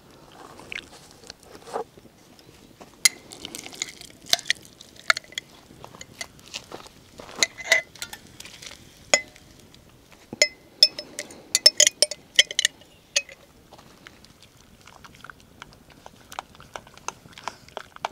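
Metal cooking pot and spoon clinking and tapping in quick, irregular strikes, some with a short ring, busiest in the middle and thinning to a few soft knocks near the end.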